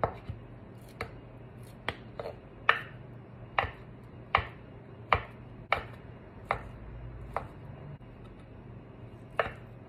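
Kitchen knife cutting through a block of Spam and knocking on a wooden cutting board as the slices are cut into cubes: about a dozen sharp knocks, roughly one a second, with a gap of about two seconds near the end.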